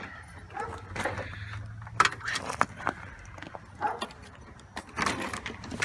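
Metal clinking and scattered sharp clicks from battery charger cables and clamps being handled. A low steady hum stops about two seconds in.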